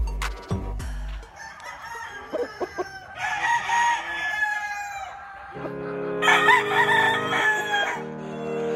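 Gamefowl rooster crowing twice in long crows, about three and six seconds in, over background music with a beat.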